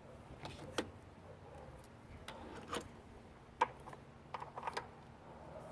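Scattered light clicks and taps, with a quick run of them about four and a half seconds in: small parts and hand tools being handled while fitting hose fittings.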